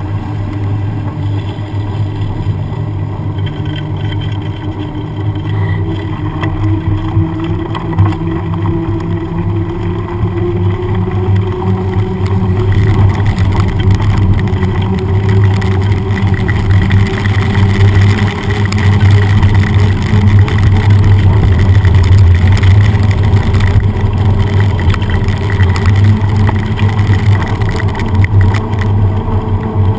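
Road noise of a bicycle riding on wet asphalt, picked up by an action camera mounted down by the front tyre: a steady low rumble with hiss, getting louder about twelve seconds in.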